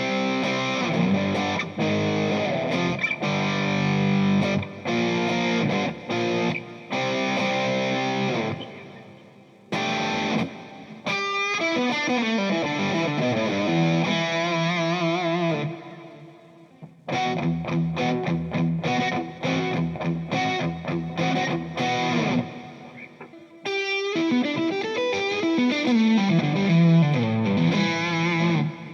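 Overdriven electric guitar played through a Kemper Bogner amp profile with Greenback speaker simulation, coming out of the Kemper Cab's speaker. Single-note lead lines with string bends and vibrato, in four phrases with short breaks between them.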